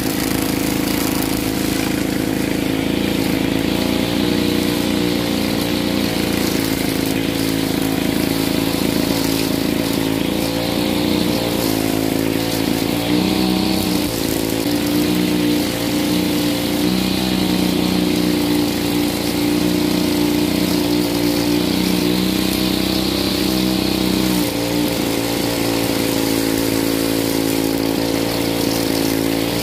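Brush cutter's small engine running at high speed while its metal blade cuts grass, a steady engine note that dips and wavers briefly now and then.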